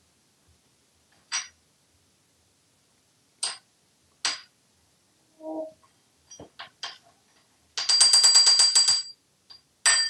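African grey parrot banging a metal spoon on a bathroom countertop: single ringing clinks a few seconds apart, then a loud, fast rattle of taps lasting about a second near the end, and another clatter as it closes.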